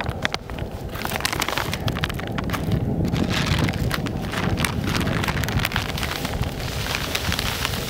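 Hands mixing dry groundbait, a steady crumbly, rain-like rustle of many fine crackles, over a low rumble of wind on the microphone.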